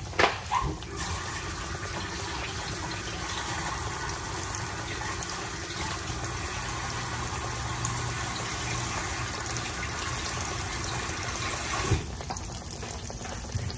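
Breaded catfish fillets frying in a deep pan of hot oil, with a steady hiss. A louder rushing, water-like noise lies over it and cuts off abruptly near the end. There is a sharp knock right at the start.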